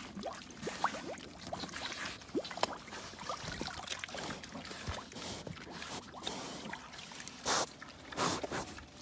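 Pigs slurping and sucking liquid slop from a feeding trough: a busy, wet run of slurps, smacks and short squeaky sounds. Near the end there are two louder rushes of noise.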